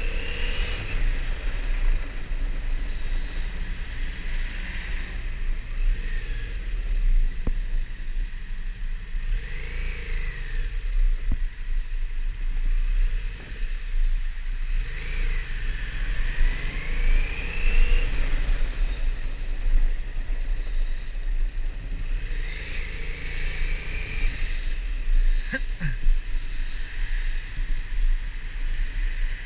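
Yamaha MT-07 parallel-twin engine rising and falling in pitch again and again as the throttle is opened and rolled off at low speed in traffic, over a steady low rumble. One sharp click sounds late on.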